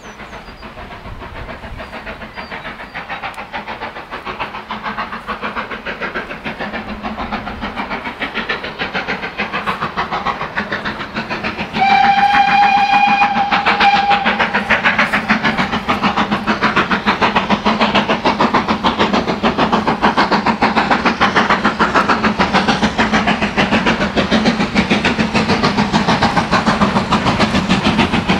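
Steam locomotive approaching, its chuffing exhaust beats growing steadily louder. About twelve seconds in, one steam whistle blast sounds for nearly two seconds.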